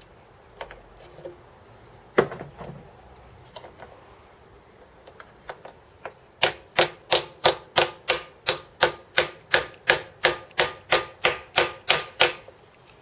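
Hammer tapping a metal bush into its bore: one hit about two seconds in, then, after some handling clicks, a run of about eighteen quick, evenly spaced taps, about three a second, with a faint metallic ring. The bush is being driven in tight.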